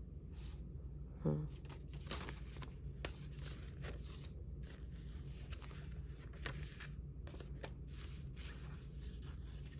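Old paper envelopes and ephemera rustling and shuffling as they are handled, in repeated short rustles over a steady low hum. A brief voice sound about a second in is the loudest moment.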